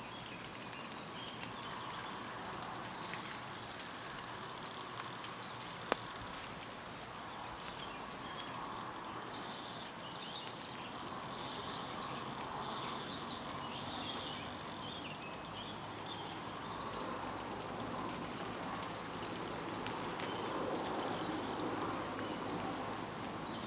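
Fishing reel ratcheting in rapid clicks while a pike is played on the line, in spells: a long one in the middle and a short one near the end.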